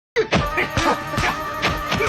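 Background music with a steady beat, about two beats a second, starting abruptly just after the opening.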